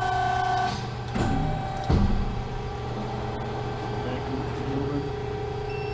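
Hydraulic press brake running, its oil pump humming steadily with a steady whine. A brief louder whine comes in the first second, and a sharp clunk about two seconds in as the machine cycles.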